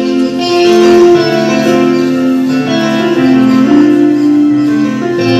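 Keyboard music playing a slow melody of held notes over sustained chords, the notes changing about once a second.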